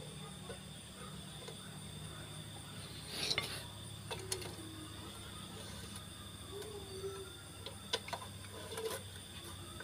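Socket wrench turning the ignition coil's mounting bolts on a scooter engine: scattered metal clicks and clinks, a cluster about three seconds in and single sharp ticks later, over a faint steady hum.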